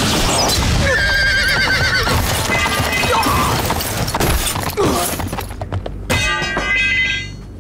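Horses whinnying over the steady thud of hoofbeats, with a wavering whinny about a second in and another near the end.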